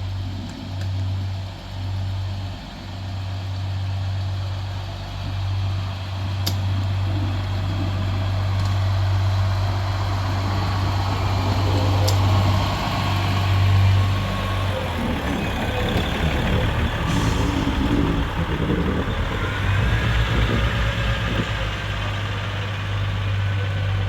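Diesel engine of a Pacer railbus running with a steady low drone.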